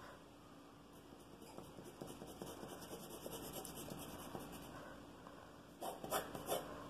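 Pencil lead scratching across paper in quick, repeated hatching strokes as shading is built up. It is faint, with a few louder scratches near the end.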